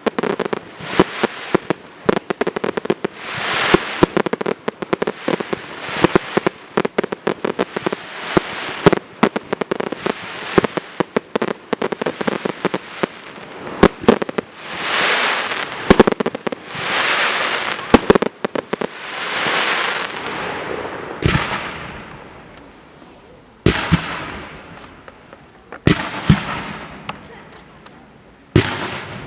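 A fireworks display firing in rapid succession: dense volleys of sharp bangs and crackling, swelling crackle-and-hiss effects in the middle, then fewer, spaced single bangs near the end.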